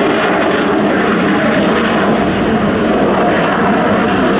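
Steady jet noise from a single Aermacchi MB-339 PAN's Rolls-Royce Viper turbojet as the aircraft flies a display manoeuvre trailing smoke.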